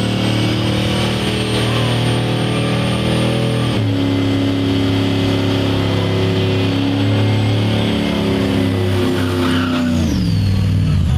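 Drag-racing car engine held at high revs during a burnout, with a steady high-pitched note. The revs fall away near the end.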